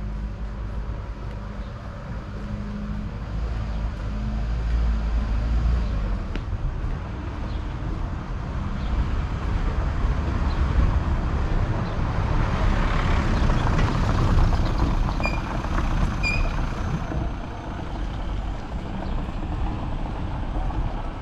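Road traffic: a vehicle engine runs low and steady for the first few seconds, then broader vehicle noise swells to its loudest around the middle and eases off.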